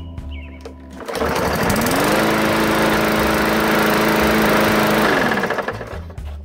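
Small four-stroke engine of an MTD 20-inch push lawn mower pull-started about a second in, catching and running up to speed, running steadily for about three seconds, then shut off and winding down near the end. It turns and runs freely now that the rear debris shield jamming the blade has been cleared.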